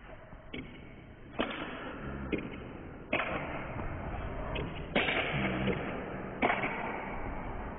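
Table tennis ball knocking off bats and table in a rally, sharp knocks at irregular spacing roughly once a second, over a noisy background that steps up in level after several of the knocks.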